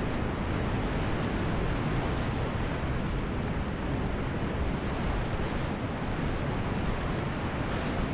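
Steady rush of whitewater through a river rapid, with wind buffeting the microphone.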